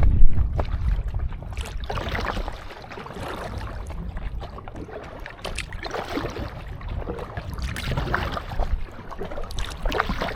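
Kayak paddle strokes and water splashing and slapping against an inflatable kayak on choppy water, in irregular swishes every second or two. Wind rumbles heavily on the microphone at the start.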